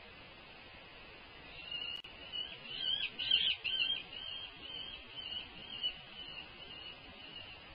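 Juvenile peregrine falcon calling: a run of repeated, wavering high calls starting about two seconds in, loudest after three seconds, then trailing off into softer calls.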